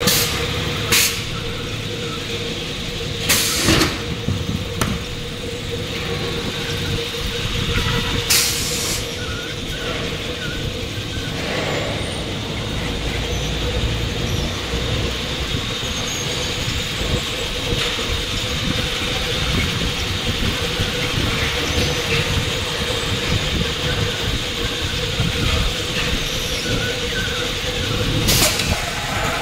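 Double-belt spiral paper core machine running steadily, a continuous mechanical hum with one steady tone through it. A few short, sharp bursts of noise stand out, about four times, as the motor-driven circular saw cuts through the wound cardboard tube.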